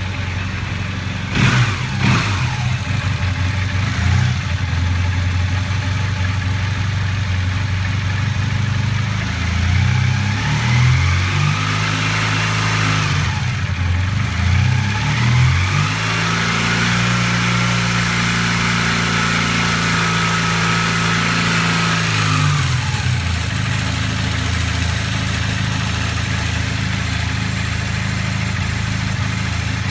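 Honda CB400N parallel-twin engine idling, blipped briefly near the start, revved up and down several times, then held at higher revs for about six seconds before dropping back to idle. It makes a strange mechanical noise which the owner suspects comes from the valves or the cam chain.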